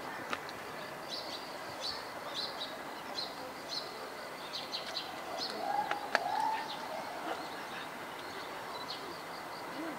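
Small birds chirping over and over in short high notes, over steady background noise; a single sharp click about six seconds in.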